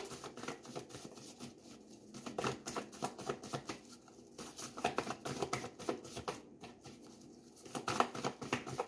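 A deck of tarot cards shuffled by hand, the cards clicking and slapping against each other in quick runs with brief pauses between them.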